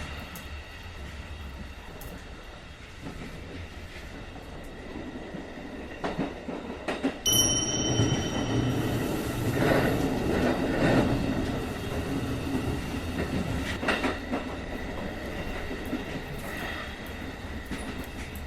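Sound effect of a train running, a steady rumble that swells into louder rushing noise from about eight to twelve seconds in. A short high squeal sounds about seven seconds in.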